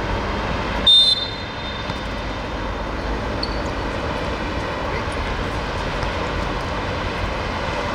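A short, sharp referee's whistle blast about a second in, over a steady outdoor rumble of background noise.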